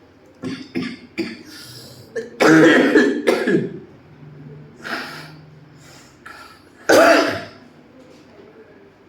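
A man coughing hard in fits: a few short coughs, a long harsh cough about two and a half seconds in, and another hard cough about seven seconds in. It is the chest cough of a patient with asthma and fever.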